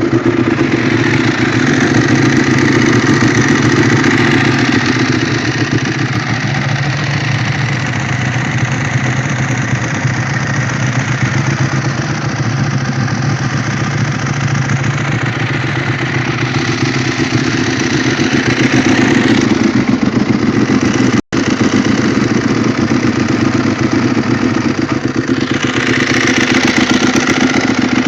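Two Ducati 1198 superbikes' V-twin engines running together, one through a Termignoni full exhaust and the other through A&R baffles in the stock cans. They are mostly idling, and the engine note shifts a few times. The A&R-baffled bike is the slightly louder of the two.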